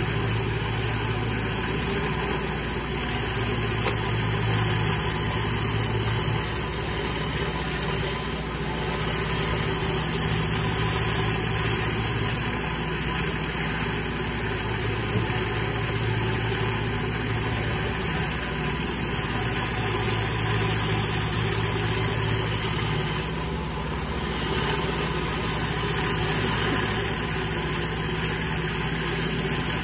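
Pressure washer running steadily under load, with the hiss of water jets spinning inside a flat surface cleaner as it is pushed over wet limestone paving.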